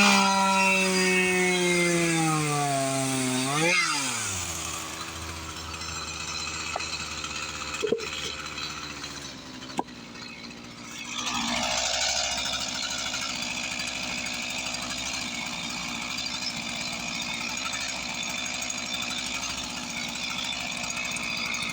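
Chainsaw running high and slowing as it works through the cut, dipping sharply about four seconds in, with two short sharp cracks around the middle before the saw runs steadily again.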